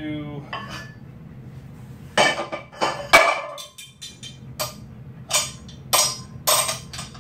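Metal clanks and clinks of a grip hub lifting set-up: the hub and loading pin knocking against a 45 lb iron plate as it is handled and lifted. Two or three loud ringing clanks come about two to three seconds in, then a run of sharper clinks about twice a second.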